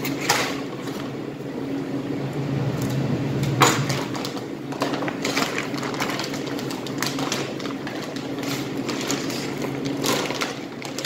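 Plastic wrap crinkling and crackling irregularly as a wrapped bone-in beef rib is handled and unwrapped, with a couple of sharper crackles, the loudest about three and a half seconds in. A steady low mechanical hum runs underneath.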